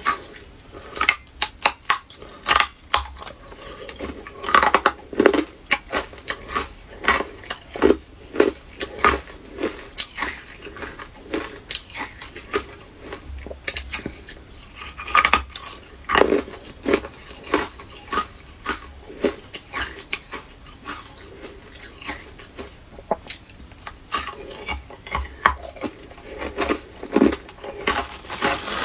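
Hard ice chunks bitten and chewed, a dense, irregular run of sharp cracks and crunches.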